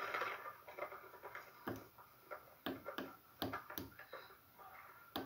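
Small push buttons on a breadboard clicking as a finger presses and releases them: about six sharp clicks at irregular intervals.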